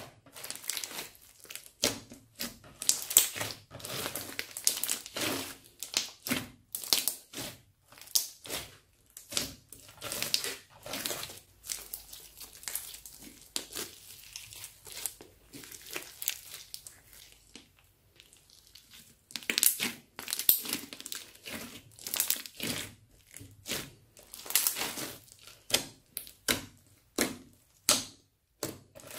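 Hands kneading and squeezing crunchy slime full of foam beads, making rapid crackling and popping. The crackles thin out and grow quieter for several seconds partway through, then pick up again.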